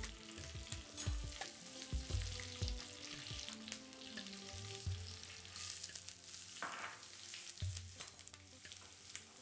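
Hot oil sizzling and spluttering in a small tempering pan as cumin seeds, dried red chillies, green chillies and curry leaves fry, with scattered pops and crackles.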